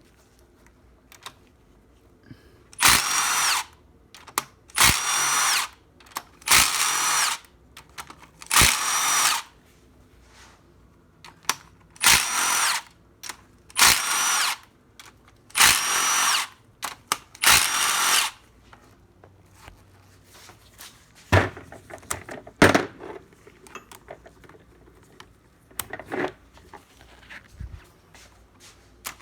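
Handheld power tool running in about eight bursts of about a second each, roughly two seconds apart, then a few shorter blips near the end: bolts being spun out while the engine's cams and cylinder head are unbolted.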